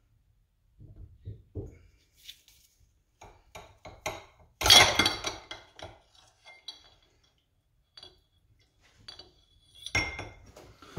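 Metallic clinks and knocks as a Fox shock's shaft and piston assembly is drawn out of the shock body. The loudest is a sharp ringing clink about five seconds in, with another near the end.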